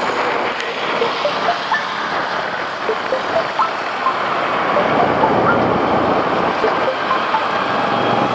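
Steady road traffic noise, an even rush of engine and tyre sound, with a fuel tanker truck close by. Faint short high tones are scattered through it.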